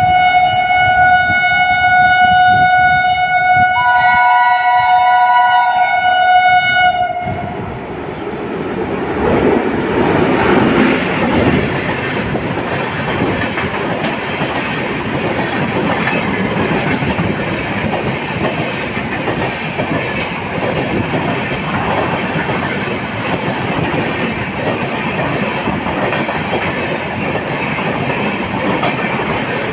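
Indian Railways electric locomotive's horn sounding one long blast of about seven seconds, with a second, higher note joining for a couple of seconds midway. Then a passenger train runs past at speed, its wheels clattering over the rail joints.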